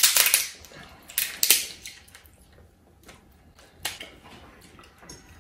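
Cooked shellfish shell being cracked and broken apart by hand, giving sharp crackling crunches: a loud one at the start, two more a little over a second in, and one near the end.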